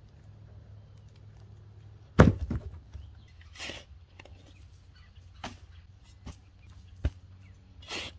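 A dead oak limb cracks loudly and clatters to the ground about two seconds in. It is followed by scattered knocks and short scraping rushes, the last near the end as a shovelful of dirt is thrown into the ashes of a steel fire ring.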